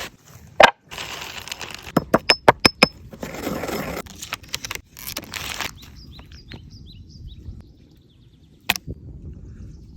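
Kitchen food-preparation sounds: a sharp knock, a quick run of about six clinks, and two short bursts of scraping or rustling. After these, small birds chirp faintly in the background.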